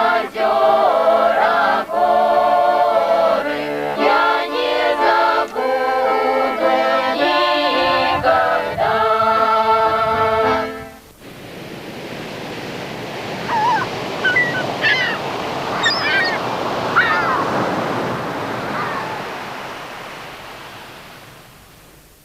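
Choral music with sustained sung chords, which stops abruptly about halfway through. A steady rush of waves follows, with a few short bird calls over it, and fades out near the end.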